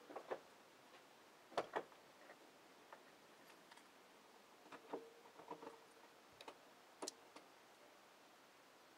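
Near silence broken by a few faint clicks and light knocks, in pairs and small clusters, the loudest pair about one and a half seconds in.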